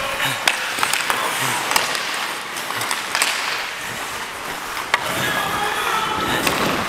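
Ice hockey skates scraping and carving on rink ice, with sharp clacks of sticks and puck throughout.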